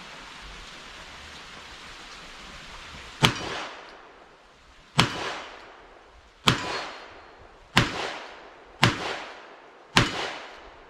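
Six shots from a Smith & Wesson Model 64 .38 Special revolver firing 158-grain lead round-nose reloads, one every second or so, emptying the six-round cylinder. Each report rings off briefly over a steady background hiss of rain.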